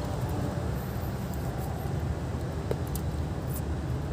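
Steady low background rumble with a few faint clicks.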